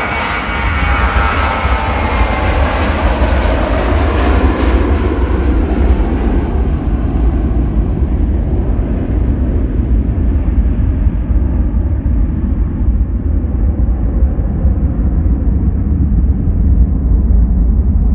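Airliner passing close by: its engine whine slides down in pitch over the first few seconds, then the high part fades out from about six seconds in, leaving a loud, steady low rumble as the aircraft moves away.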